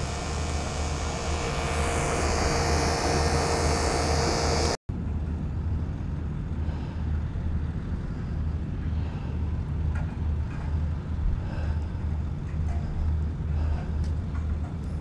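Window-unit air conditioner running close to the microphone: a loud steady fan rush with a hum and a low throb. About five seconds in it cuts off abruptly to a quieter steady low hum.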